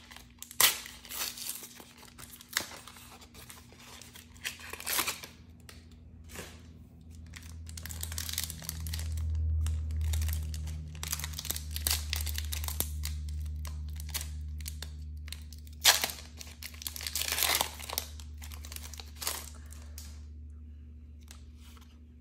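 A trading-card blister pack and its foil booster wrapper being torn open by hand: repeated bursts of crinkling and tearing, the sharpest about a second in and again around sixteen seconds. A low steady hum rises in about seven seconds in and fades near the end.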